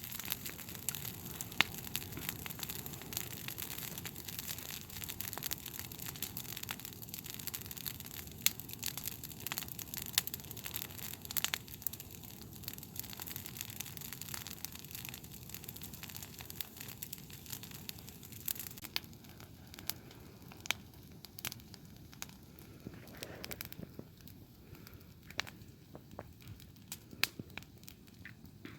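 Campfire burning down: embers crackling, with frequent sharp snaps and pops over a soft hiss that thins out in the second half.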